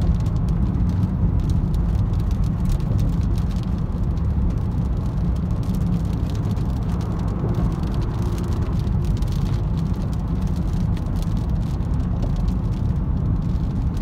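Steady road and engine noise heard inside a moving car's cabin, a low rumble at an even level, with light scattered ticks of raindrops hitting the windshield.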